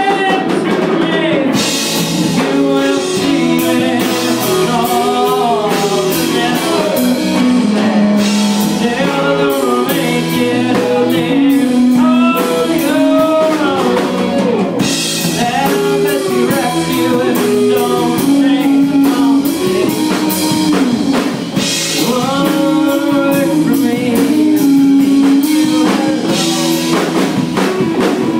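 Live rock band playing: electric guitars, bass guitar and drum kit with cymbals, with a man singing lead vocals over them.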